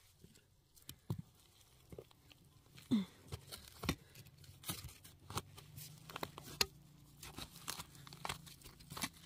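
Hands and a stick digging in moist soil around ginger rhizomes: quiet, irregular crunching and scraping of earth, with scattered sharp clicks.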